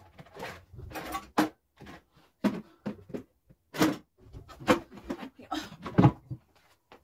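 Wooden kitchen cupboard being rummaged through for a cup: a series of sharp knocks and clatters from its doors and the things inside, loudest about four and six seconds in.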